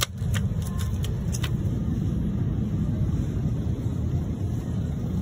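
A steady low rumble, with a few sharp clicks in the first second and a half as a plastic yogurt tub is pulled off a shelf and handled.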